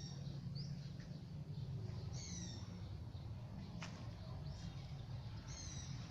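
A bird calling in the background: short high calls of a few falling notes, twice, about three seconds apart, over a steady low rumble. A single sharp click comes about two-thirds of the way in.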